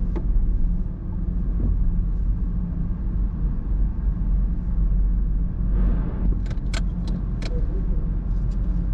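Steady low engine hum, with a few sharp clicks and jingles about six to seven and a half seconds in.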